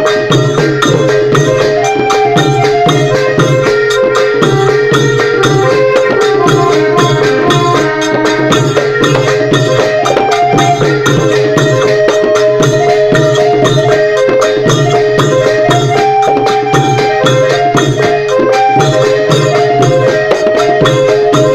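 Thai klong yao long-drum band playing: rapid drum strokes with a melody over a held drone note.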